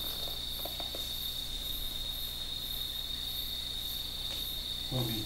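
Night crickets chirping in a steady, unbroken high trill.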